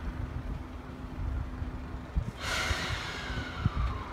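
Stationary E001-series TRAIN SUITE Shiki-shima train lets out a sudden hiss of compressed air about two seconds in, with a faint whistle falling in pitch as it dies away, over a steady low hum from the train.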